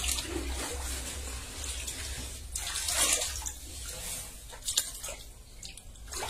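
Water sloshing and splashing in a shallow tub as a mass of live eels writhes in it, in uneven surges with a few sharp drips or slaps, over a low steady hum.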